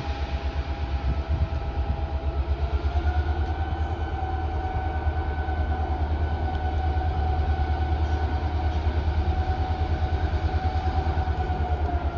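Ex-Victorian Railways X class diesel-electric locomotive X54 running, its diesel engine giving a fast low throb under a steady whine. The whine rises a little in pitch about two and a half seconds in, and the sound grows louder over the first few seconds.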